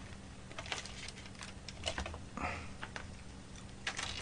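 Aluminium foil crinkling as it is handled, with light scattered clicks of a plastic spoon scraping food out of it.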